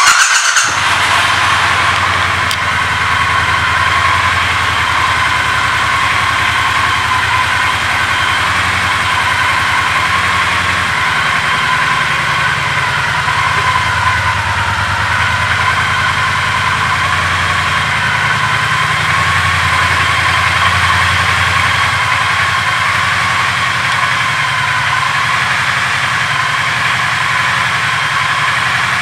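2020 Triumph Bonneville T120's 1200 cc parallel-twin engine starting with a sudden loud burst, then settling into a steady idle.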